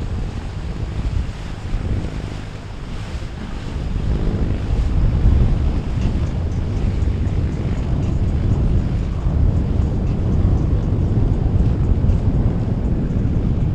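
Wind buffeting the microphone with a heavy rumble, over the running of boat engines and moving water.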